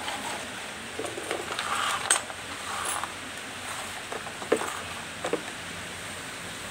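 Handling noise of a plastic RC boat hull with a bent-wire rudder bracket being moved about on a hard floor: scattered light clinks and taps with some rustling, the sharpest taps about two seconds in and again a little past the middle.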